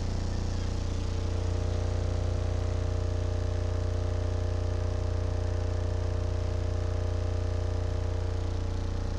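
AudioPipe TXX-BDC4-12 12-inch subwoofer playing a steady low test tone around 35 Hz, the frequency the owner takes for the box's sweet spot, with a steady higher buzz of overtones over the deep drone.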